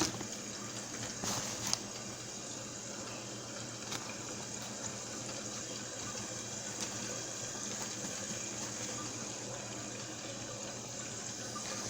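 Breaded cube steak frying in hot oil: a steady sizzle, with a few light clicks near the start.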